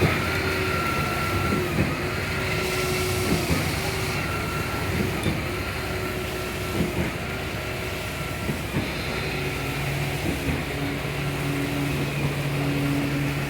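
Diesel-driven concrete pumping machinery running steadily during a pour. A knock and a short break in its hum come about every one and a half to two seconds, in a regular cycle.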